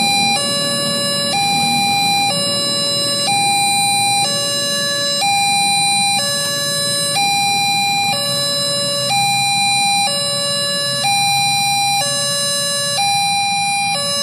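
Railway level-crossing warning alarm sounding an electronic two-tone hi-lo signal, switching between a high and a low tone about once a second. This is the signal that the crossing is closed for a train. A low rumble from the passing train runs under it and fades out about nine seconds in.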